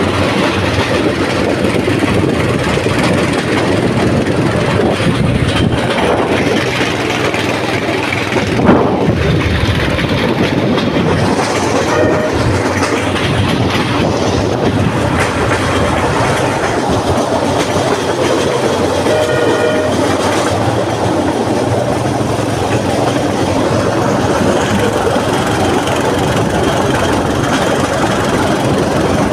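Small rail vehicle running steadily along a track, with a continuous rumble and clatter of wheels on the rails. One sharp knock comes about nine seconds in, and a short pitched tone sounds about twenty seconds in.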